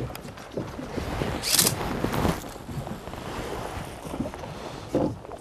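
Wind and sea noise on an open fishing boat, with scattered small knocks and rustles of handling as a hooked fish is worked free of the lure. A short, loud hiss about a second and a half in, and another brief burst near the end.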